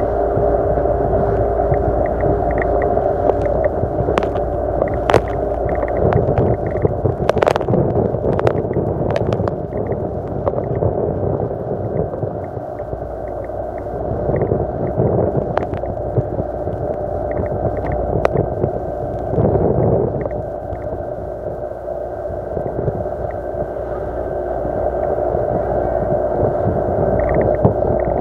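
Yamaha 40 hp two-stroke outboard motor running steadily, driving the boat along: an even drone with a few short sharp knocks over it.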